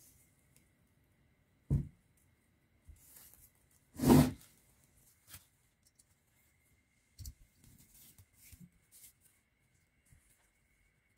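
Soft rustling and handling of lacing tape and wire leads being tied around a rewound motor stator's copper coils, with a short knock about two seconds in and a louder bump about four seconds in.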